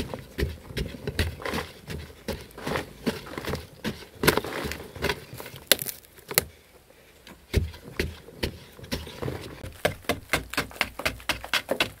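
Long-handled digging tool striking and scraping hard-packed earth, stroke after stroke, with soil falling. The blows come irregularly at first and quicken to a steady run of about three a second near the end.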